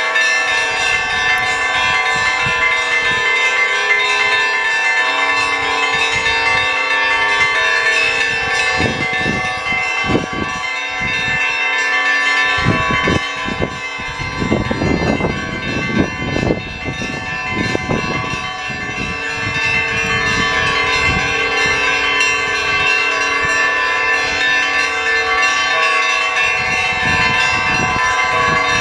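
Russian Orthodox monastery bells being rung: many bells of different pitches struck in quick succession, their tones overlapping in a dense, continuous peal. The lower bells fall silent for a few seconds around the middle while the smaller bells keep ringing.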